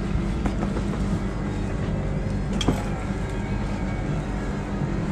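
A steady low mechanical hum, like a motor or engine running, with one sharp click a little past halfway.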